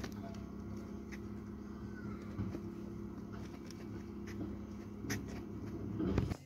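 Dennis Elite 6 refuse lorry standing with its engine and bin-lift hydraulics running, a steady low hum, with a few sharp knocks and clatters as a wheelie bin comes down off the Terberg lifter and is pulled away.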